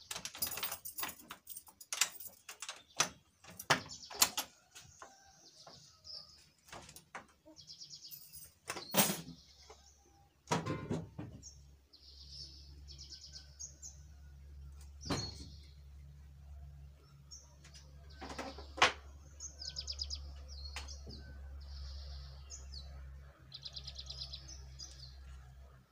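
Metal clicks, rattles and knocks of a door lock being worked on a corrugated-iron shed door, then the door being opened. Small birds chirp repeatedly throughout, and a low steady hum comes in about ten seconds in.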